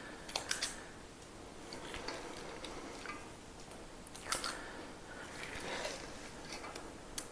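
Metal squeeze-handle cookie scoop clicking as its release lever is squeezed, with light scraping and handling noise as it scoops sticky oat mixture from a stainless steel bowl. A few sharp clicks come just under a second in, about four seconds in and near the end.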